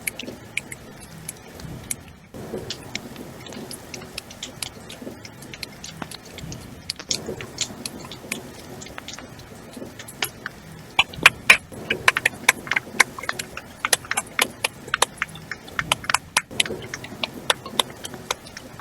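Hands making a rainstorm sound: a patter of sharp snaps and claps, sparse at first, growing thicker and louder about halfway through, then thinning out again.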